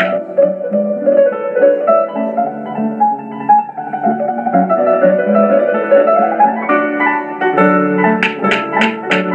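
Instrumental background music: a keyboard melody over a steady accompaniment, with a crisp tapping beat of about three to four taps a second coming in near the end.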